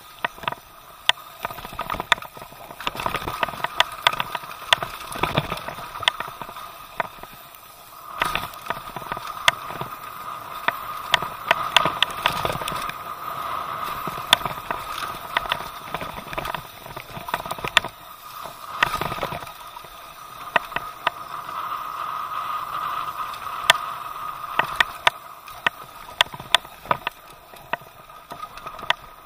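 Downhill mountain bike descending a dirt singletrack: steady rushing tyre noise with frequent sharp clacks and rattles as the bike runs over rough ground.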